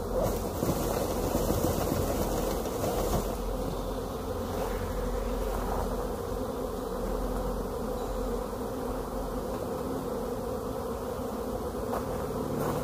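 Swarm of honey bees buzzing in a steady drone as they are shaken off a tree branch into a box and fly about in the air.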